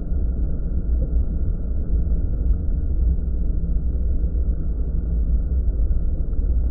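Steady low rumble with no distinct events, the wind and riding noise picked up by an action camera's microphone during a ride.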